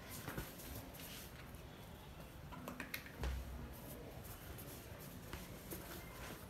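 Faint scattered clicks and scuffs of a German Shepherd puppy's claws on a tiled floor as it pushes a football about, with a low thump about three seconds in.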